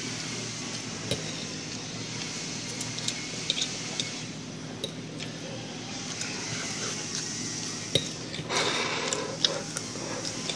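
A fork clicking and scraping against a plate while someone eats eggs: a few sharp, scattered clicks over a steady low background hum.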